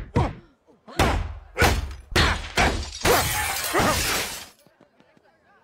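Cartoon sound effects: a run of heavy thuds, about four of them half a second apart, then a plate-glass shop window shattering in a crash lasting about a second and a half.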